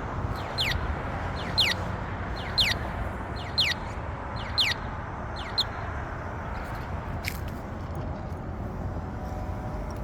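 Accessible pedestrian signal at a crosswalk chirping: short high downward-sweeping chirps about once a second, stopping about six seconds in, over steady traffic rumble.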